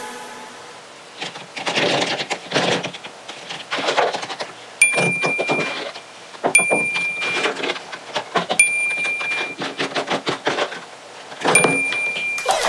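Clicking and rattling of small hard objects being handled, with four short, bright electronic dings spaced a second or two apart.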